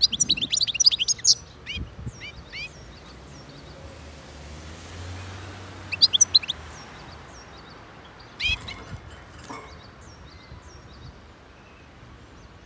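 European goldfinch singing in short bursts of quick, high twittering chirps: a loud run at the start, then brief phrases about two, six and eight and a half seconds in, with quieter gaps between.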